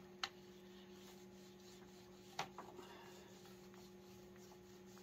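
Near silence: a faint steady hum, with two light clicks, about a quarter second and two and a half seconds in.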